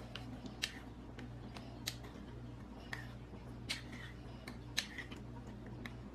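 A spoon clinking irregularly against a bowl while stirring minced garlic into melted butter, over a steady low hum.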